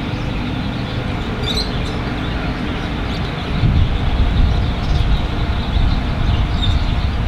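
Wind buffeting the microphone: a steady, irregular low rumble with hiss that grows stronger about halfway through.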